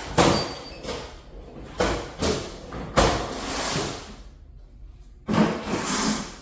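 Thuds, knocks and scraping from things being moved around while searching for a misplaced tool. There are three sharp knocks about a fifth of a second, two seconds and three seconds in, and two longer scraping, sliding stretches after the third knock and about five seconds in.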